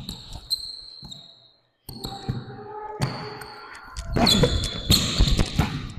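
A basketball being dribbled and bounced on a court during a one-on-one game. The bounces get louder and closer together in the second half, with short high-pitched squeaks. The sound cuts out briefly a little under two seconds in.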